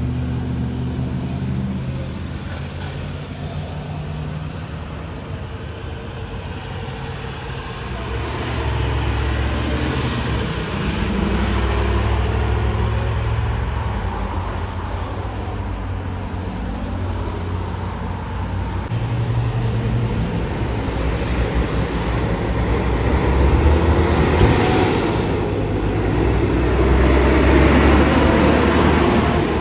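Road traffic passing: the engines and tyres of cars and trucks, a steady low rumble that swells and fades as vehicles go by, loudest near the end.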